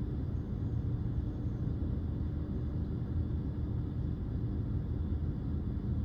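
Steady low rumble of a car heard from inside its cabin, with a faint steady hum over it.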